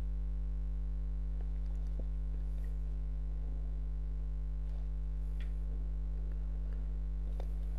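Steady electrical mains hum, a low buzz with a stack of overtones, picked up by the recording setup, with a couple of faint clicks.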